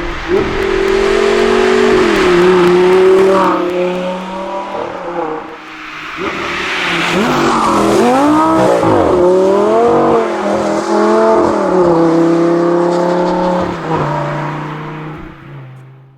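Lamborghini Gallardo LP 560-4's 5.2-litre V10 running loud through its active exhaust, valves open in Sport mode. It holds a steady pitch, then revs up and down sharply several times in quick succession before fading away near the end.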